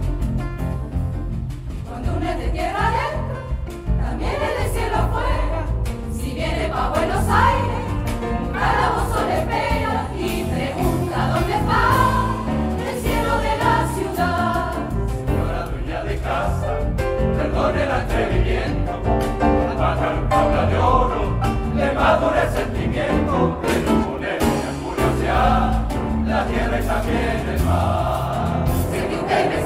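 Large mixed choir singing in chorus with instrumental accompaniment and a steady low bass line underneath.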